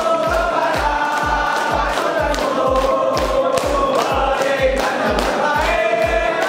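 A group of men singing in chorus over music with a steady drum beat, about two beats a second, with held sung notes and hand claps.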